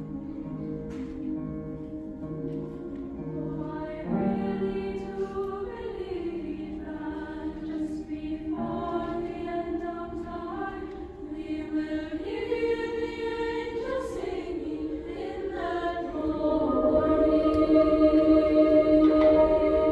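A girls' choir singing sustained harmonies, entering about four seconds in over a soft repeating low figure and growing louder near the end.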